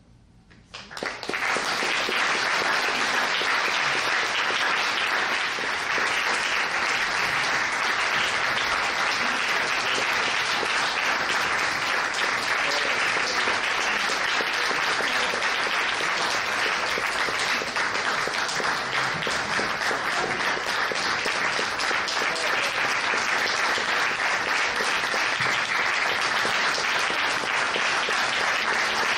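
Audience applause at the end of a performance, breaking out abruptly about a second in after near silence and then going on steadily.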